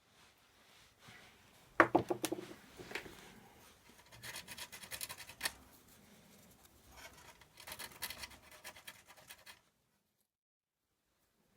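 Hands working on a toaster's metal parts: a sharp knock about two seconds in, a second click shortly after, then bouts of scraping and rubbing that stop suddenly near the end.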